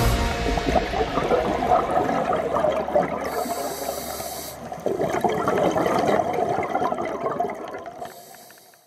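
Underwater bubbling and gurgling water that swells again about five seconds in, then fades out near the end.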